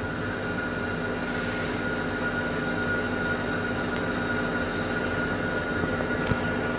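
Lathe running under load while a boring bar with a TPMR carbide insert cuts steel inside the bore of a hydraulic cylinder head, machining the wiper seal recess: a steady machine hum with a thin high whine from the cut.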